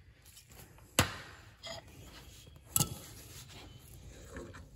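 Tools being handled in a shop: a sharp knock about a second in, the loudest sound, and a quick double knock near three seconds, with faint handling noise between them.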